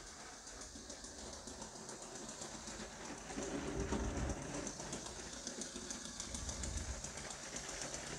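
A motorised LEGO steam locomotive runs along plastic track: a low rumble with a fast run of ticks from the wheels, louder as the engine passes close about four seconds in. The builder puts the ticking down to the tender's wheels not being spaced quite right on their Technic axle, next to the motor.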